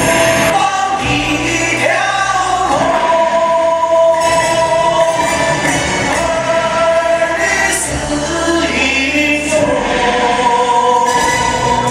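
Recorded song with singing over instrumental backing, its melody moving through long held notes.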